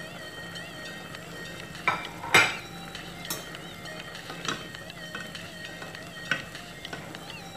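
Vegetables going into a sizzling pot and being stirred with a ladle, with a steady sizzle underneath. Five sharp knocks of the ladle and vegetables against the pot, the loudest about two and a half seconds in.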